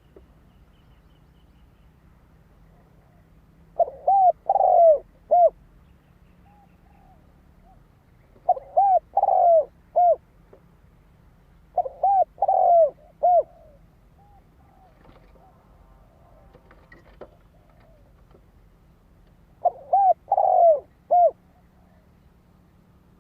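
Spotted dove singing its cooing song: four phrases of several quick, arching coos each, a few seconds apart, with a few softer single coos between them.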